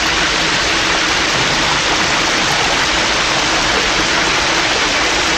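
Steady, even spray of a running shower from a film soundtrack.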